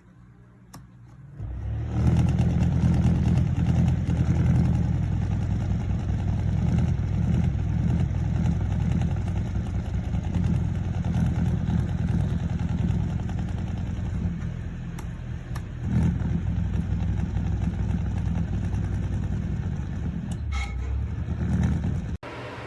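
Ceramic space heater's fan blowing, its air buffeting the microphone as a loud, uneven low rumble. The rumble starts about two seconds in and cuts off abruptly just before the end.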